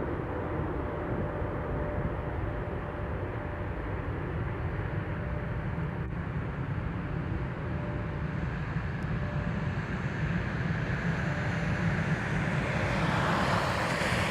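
Steady distant rumble of a Boeing 777-300ER's GE90 jet engines as the airliner climbs away after takeoff, with a faint steady whine over it.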